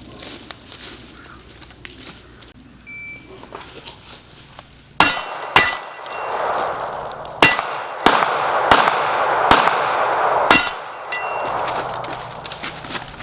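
A string of about seven or eight 9mm pistol shots from a SIG P320, starting about five seconds in, unevenly spaced. Several of the loudest shots are followed by a high metallic ringing, as from hits on steel targets.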